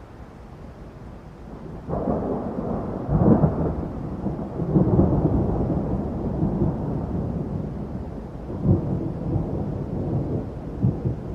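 Thunder in a thunderstorm: a sudden crack about two seconds in, then a long rolling rumble that swells louder several times.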